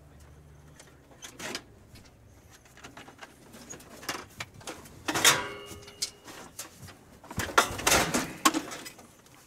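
Junk being shifted around in a steel dumpster: scattered knocks and rustles, a loud metallic clang about five seconds in that rings briefly, and a louder burst of clattering near the end.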